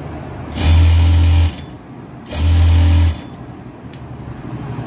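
Sewing machine stitching a double-folded hem, run in two short bursts of about a second each with a pause between.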